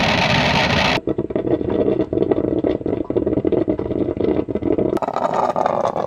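Coffee maker brewing sound, digitally processed with audio effects so that it sounds like an engine running; the treatment changes abruptly about a second in and again about five seconds in.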